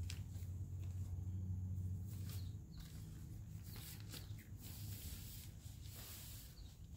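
Tent fabric rustling and crinkling at irregular moments as a panel is handled and folded on grass. A low steady hum runs under the first couple of seconds and fades.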